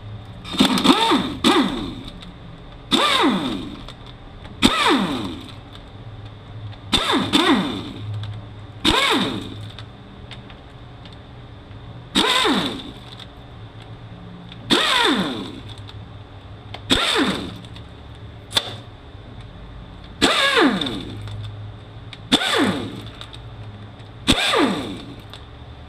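A cordless power driver spinning out the T25 Torx bolts that hold a transmission oil pump together, run in about a dozen short bursts roughly two seconds apart, each falling in pitch as the motor winds down.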